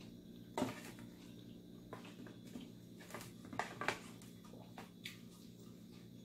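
Close eating sounds of a person eating rice and sautéed sardines by hand: scattered short wet smacks and clicks, the sharpest about half a second in and two more close together near four seconds.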